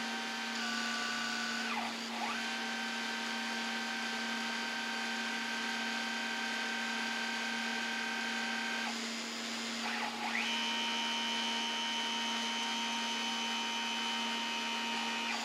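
Home-made 3-axis CNC mill running a chamber-fluting program: its axis drive motors whine in several steady high tones that change pitch with each move. There are short breaks about two seconds in and again around nine to ten seconds in, where a tone glides up as the next move starts, all over a steady low hum.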